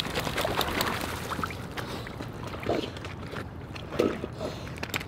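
Water sloshing and splashing with many small ticks and drips. Two short, low-pitched sounds stand out, one near the middle and a louder one about four seconds in.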